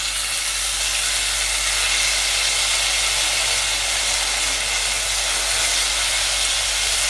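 Tomato ketchup sizzling loudly and steadily in hot oil in a wok of fried egg balls, the hiss starting sharply as the sauce hits the pan.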